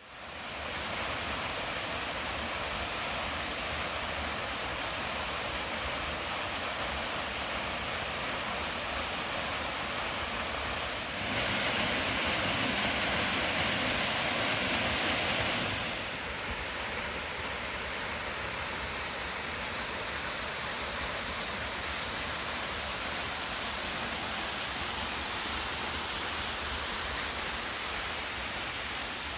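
Uha no Shiotaki, a 15 m plunge waterfall, falling with a steady rushing hiss of water. The sound swells louder for about five seconds near the middle, then settles back to the same steady level.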